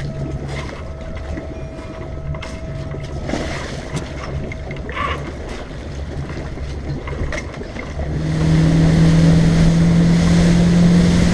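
Tow boat's engine idling under wind and water noise, with a few scattered knocks, then throttling up about eight seconds in and running much louder, its pitch creeping upward as the boat accelerates through spray to tow the hang glider.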